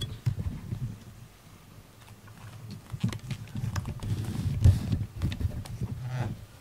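A cat rubbing and bumping its head and body against the camera: a run of low rumbling thumps and fur rubbing on the microphone, loudest about four to five seconds in.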